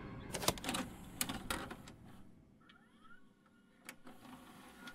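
Irregular mechanical clicks and clunks of a VCR loading and starting a videotape, several in the first second and a half, then sparser. A faint short rising whir comes about three seconds in.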